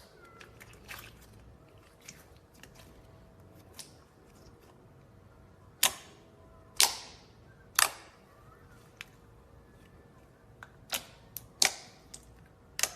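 Clear slime being worked by hand, giving soft sticky crackles and several sharp, loud pops: three about halfway through and three more near the end.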